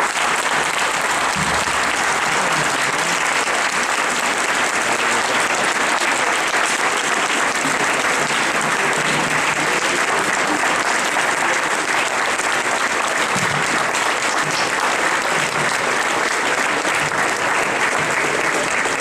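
A large audience applauding, a long steady ovation.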